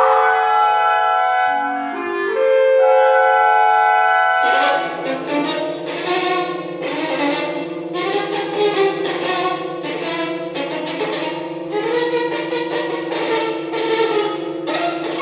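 Instrumental music: sustained held chords, then from about four and a half seconds a steady low drone with a regular pulse of notes about every two-thirds of a second over it.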